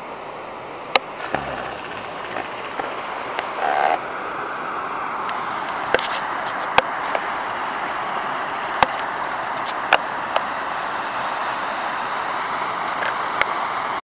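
Water rushing and foaming through a narrow channel cut in earth banks: a steady rushing noise that grows louder over the first few seconds and then holds. Scattered sharp clicks sound over it.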